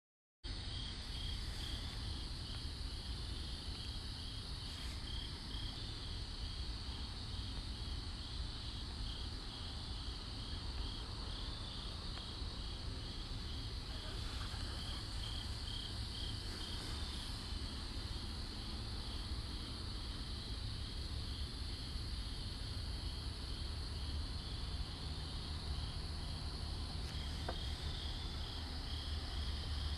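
Night insects chirping: an evenly repeating pulsed chirp over a continuous high trill, with a steady low rumble underneath.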